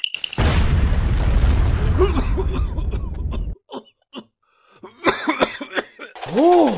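Sound effects. First a loud rushing, rumbling noise for about three seconds, then after a short gap a few clicks and cartoon-like effects that sweep up and down in pitch.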